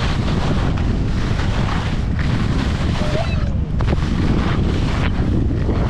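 Wind buffeting the microphone in a steady, loud rumble and hiss.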